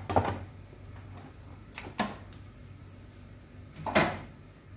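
Three sharp knocks about two seconds apart, from seasoning containers being handled on the kitchen counter, over a low steady hum.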